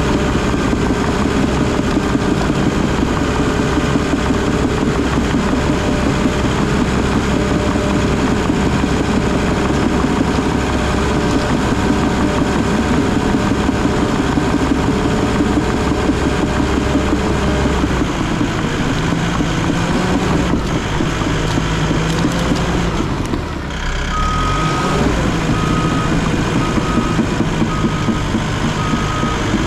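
Bulldozer's diesel engine running hard and steady while pushing. Its note shifts about two-thirds of the way through as the load changes. Near the end a backup alarm starts beeping in a steady rhythm, a little over one beep a second, as the dozer backs up.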